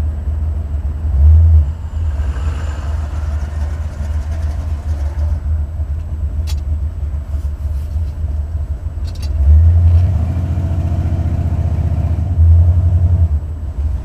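Buick 455 Stage-1 V8 running, with louder surges in engine speed about a second in and twice near the end. This is an engine whose owner suspects a driver's-side lifter that isn't pumping up, or a pushrod problem.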